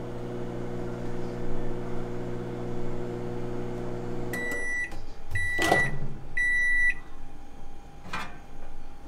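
Microwave oven running with a steady hum, which stops about four seconds in as the countdown ends, followed by three beeps about a second apart signalling the cycle is done. A sharp clunk of the door being opened falls between the beeps, and a lighter knock comes near the end.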